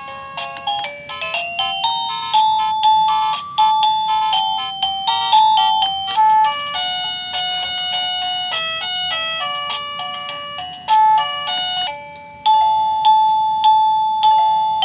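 Liztek wireless doorbell receiver playing one of its built-in electronic melody chimes, note after note, each note struck and fading. The tune breaks off briefly about 12 seconds in and then starts up again.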